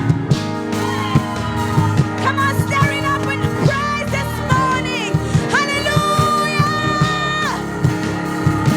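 Music with singing over a steady beat and sustained chords; one long held sung note in the middle.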